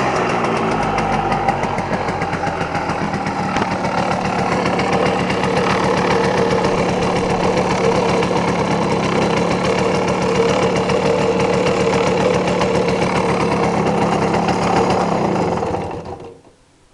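Simson S51's 50 cc single-cylinder two-stroke engine idling steadily with a rapid, even putter. The sound cuts off abruptly near the end.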